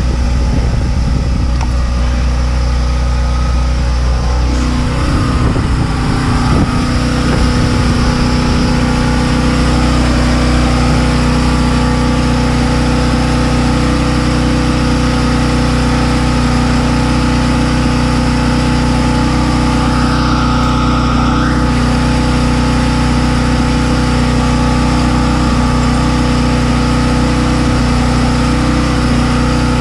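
An engine idling steadily, a constant low drone, with a few knocks in the first several seconds.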